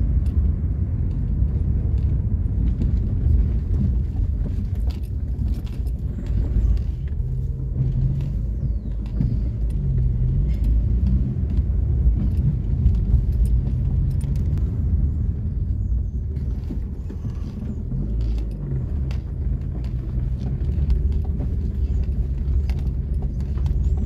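A car driving on a rough, patched road, heard from inside the cabin: steady engine and tyre rumble, with scattered light knocks and rattles as it goes over the uneven surface.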